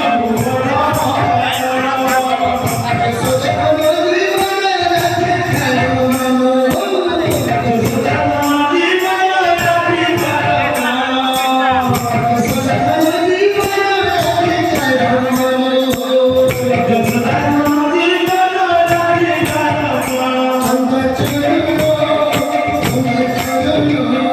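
Odia kirtan music: a male voice singing a devotional melody over a two-headed barrel drum and jingling hand cymbals that keep a steady beat of about three strokes a second.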